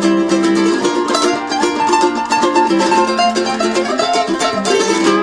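Background music led by a fast-picked plucked string instrument, with steady held notes underneath.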